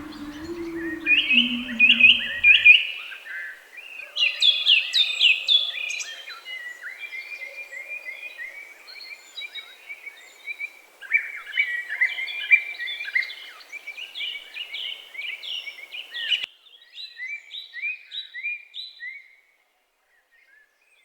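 Small songbirds chirping and trilling in fast runs of short, repeated notes. A low steady tone slides down and stops about three seconds in. The background hiss cuts off about sixteen seconds in, and the birdsong stops shortly before the end.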